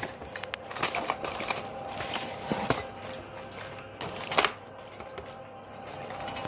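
Close-up eating sounds: irregular clicks, smacks and crackles of chewing and of hands picking rice from a takeaway container, with a louder crackle about four and a half seconds in. A faint steady hum lies underneath.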